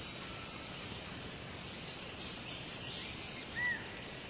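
Steady outdoor background ambience with two short bird chirps, one early and a brief arched note near the end.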